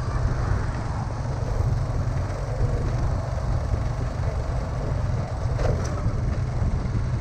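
Steady low rumble of wind and road noise on the microphone of a moving vehicle, with a brief faint sharper sound about two-thirds of the way through.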